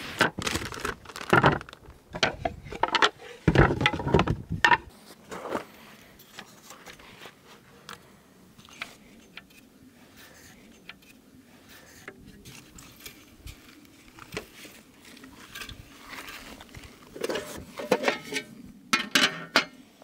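Handling noises of camping gear: a cluster of knocks and clicks in the first few seconds, then a quieter stretch with scattered light ticks. Near the end comes clattering as a metal folding camp table frame is opened out.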